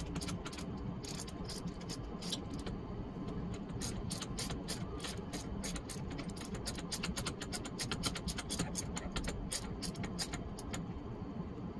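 Hand ratchet clicking in quick runs as bolts are backed out of an RV ladder's wall-mount bracket, stopping shortly before the end, over a steady low hum.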